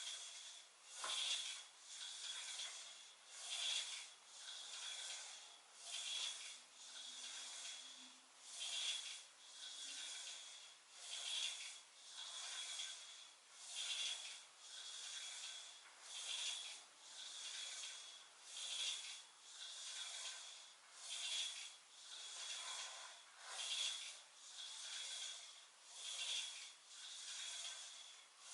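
A person doing weighted crunches: a rasping, hissing sound that swells and fades in a steady rhythm, one louder and one softer swell per repetition, about every two and a half seconds.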